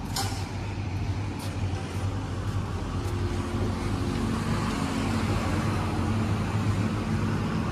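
Steady road-traffic noise with a motor vehicle engine running nearby, a low hum that grows slightly louder over the seconds, with a couple of short clicks in the first second or two.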